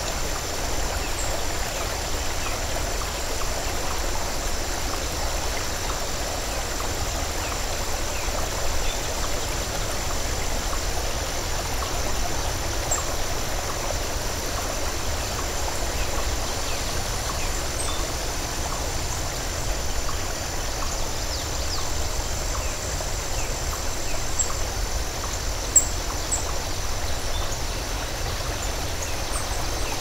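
Steady rushing and splashing of water cascading over rocks, with one short sharp tick near the end.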